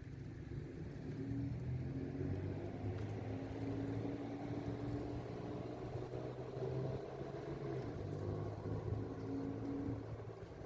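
A motor vehicle engine running steadily in street traffic, its pitch shifting only a little.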